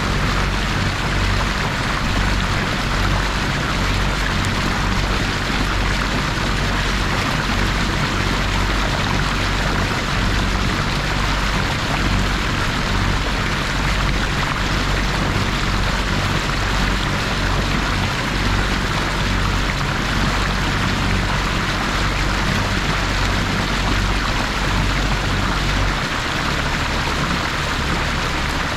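Water rushing and splashing along the hull of a sailboat motoring slowly through calm water, over the low, steady hum of its engine. The hum shifts lower near the end.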